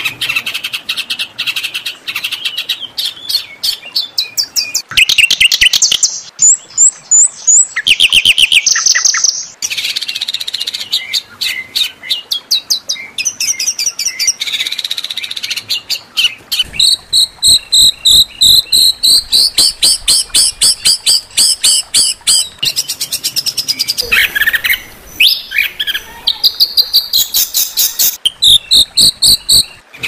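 Loud, fast songbird song: runs of rapid repeated sharp chirps and chattering trills, high-pitched and changing pattern every few seconds, with a few lower falling notes near the end. It is a harsh-toned 'kasar' tutor-song recording of the kind played to train competition songbirds.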